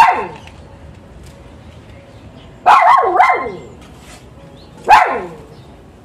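Dog barking: four loud, sharp barks, one at the start, a quick pair about three seconds in, and one more near the end.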